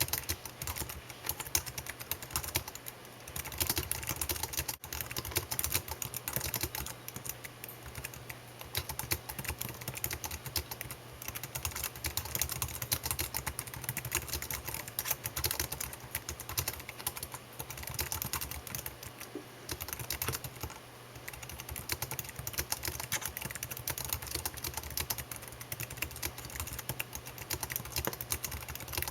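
Computer keyboard typing: a steady run of fast key clicks, with short pauses now and then.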